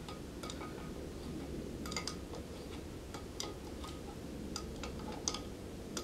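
Adjustable wrench clinking on the bushing bolts of a large multi-groove V-belt pulley as the bushing is snugged up onto the PTO shaft, not yet fully tightened. It gives light, irregularly spaced metallic clicks with a brief ring, about a dozen of them.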